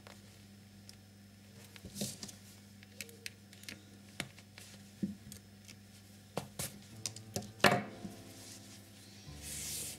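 Hands working a sewing needle through a crocheted yarn doll's head, with needle-nose pliers used to pull the needle through: scattered small clicks and rustles. The loudest is a sharp click about three-quarters of the way through, and a brief rustle comes near the end.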